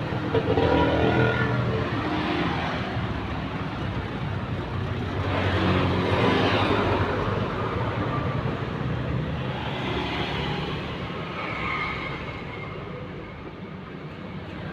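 Road traffic: motor vehicles going by, the noise swelling and fading about three times over a steady low engine hum.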